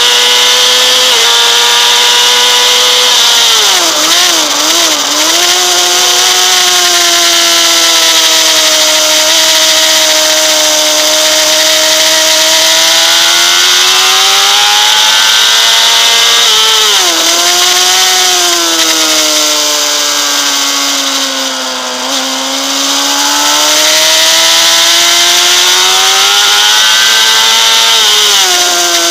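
Honda CBR600RR's 600 cc inline-four engine running at high revs on track, with wind rushing past. The revs drop in quick wavering steps as it shifts down for corners, about four seconds in, again around the middle and just at the end, and climb steadily in between as it accelerates.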